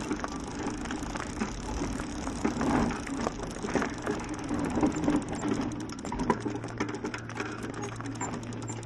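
Husky-drawn bicycle cart rolling along, with a rapid run of fine mechanical ticks and rattles over a low steady hum.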